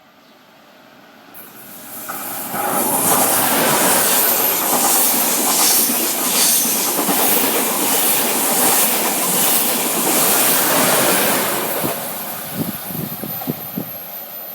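A train passing at speed: a rush of wheel and air noise that swells from quiet over the first few seconds, stays loud with a rapid run of wheel clicks over the rail joints, then fades away near the end.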